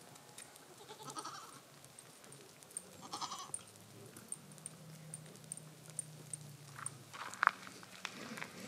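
Goats bleating, two short calls about a second and three seconds in, with a low drone in the middle and a few sharp clicks near the end, the loudest about seven and a half seconds in.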